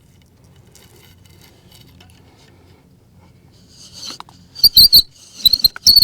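Bow drill with a fidget-spinner bearing block being worked: after a few quiet seconds, from about four seconds in the wooden spindle squeaks loudly and high-pitched in short bursts as the bow strokes back and forth.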